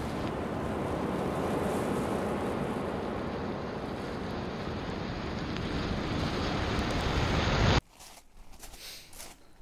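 A steady rushing noise, like wind or surf, that swells slowly louder and then cuts off abruptly near the end, leaving only faint clicks.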